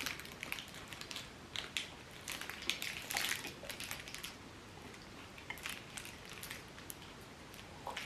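Faint, scattered crackling and clicking from a protein bar being handled and eaten: its plastic wrapper crinkling and the bar being bitten and chewed.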